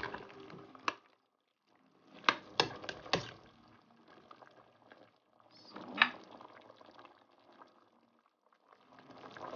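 Pork and vegetable sinigang soup bubbling and sloshing in a stainless steel pot, with sharp metal clinks of a spoon against the pot: a quick cluster of four about two to three seconds in and a single one about six seconds in. It drops to near silence briefly twice.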